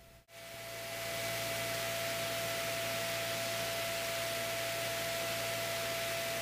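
Steady in-flight cabin noise of a Piper Archer III: an even hiss with a low hum and a steady high whine. It cuts out briefly near the start, then fades in over about a second and holds.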